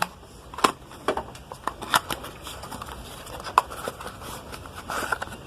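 Faint handling noise with a few scattered sharp clicks, as of a plastic three-pin plug top being turned over in the hands.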